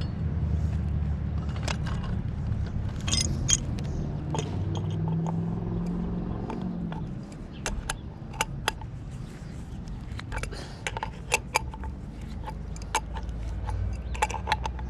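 Pipe wrenches clinking and scraping on a threaded pipe fitting. One wrench holds the fitting while the other turns the connection above it, so the pipe beneath isn't strained. From about halfway there is a run of sharp metallic clicks, over a low steady rumble.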